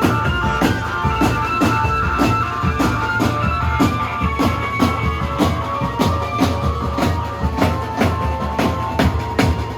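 Drumband music: drums keeping a steady beat of about three to four hits a second under a held, shifting melody line, with a continuous low bass.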